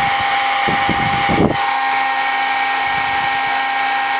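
Heat embossing tool running steadily, a loud fan whine with a hiss of blown hot air, heating a clear acetate wing until it softens and bends. A few brief low bumps come in the first second and a half.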